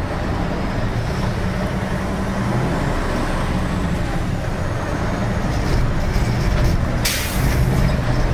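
Truck engine running under load, heard from inside the cab as the truck drives over rough dirt ground, with a short hiss about seven seconds in.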